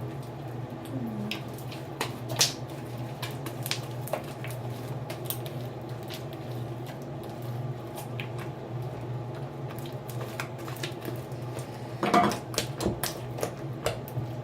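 Sticky homemade slime being kneaded and squeezed by hand, giving scattered wet clicks and squelches over a steady low hum, with a louder burst of clicks about twelve seconds in.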